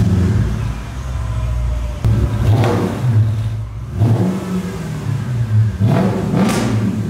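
2008 Mercedes SL550's V8 engine revved in a series of short throttle blips, its exhaust open with the mufflers cut off (straight piped).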